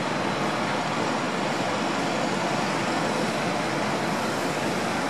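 Steady, even rush of distant city road traffic, with no bird calls heard.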